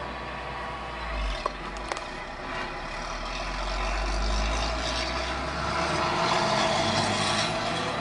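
Truck running and rolling across a stubble field, heard from inside the cab, with a steady low rumble that grows louder in the second half. A couple of sharp clicks come about a second and a half in.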